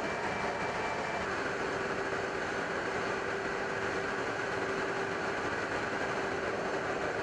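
Steady jet aircraft noise in flight: an even, unbroken rush with a faint steady hum running through it.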